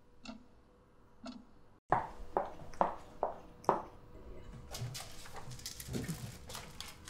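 Wall clock ticking faintly about once a second, then, after a cut, five sharp knocks about half a second apart, followed by quieter rapid clicking like typing on a computer keyboard.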